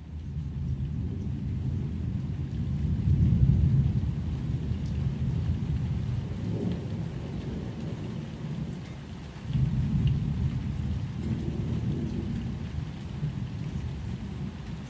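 Rain with low rolling thunder; the rumble swells about three seconds in and again about ten seconds in, with faint drop ticks over it.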